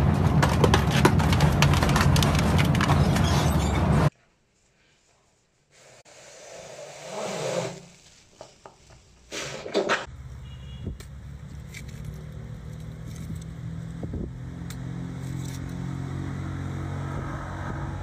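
Industrial twin-shaft shredder tearing into a metal gas cylinder: loud, dense grinding full of crackling clicks, cutting off abruptly about four seconds in. After a short near-silent gap come quieter scraping sounds and a few sharp clicks. From about ten seconds in, a steady low hum runs underneath.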